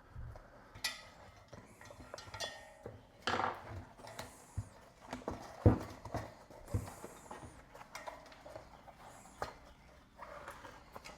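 Tire levers and a bicycle wheel's tire being handled and worked: scattered light clicks, knocks and scrapes, with the sharpest knock a little past halfway.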